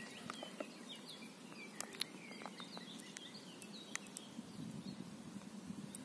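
Faint background birdsong: many short, high chirps from small birds over a steady low outdoor hum, with a few faint clicks.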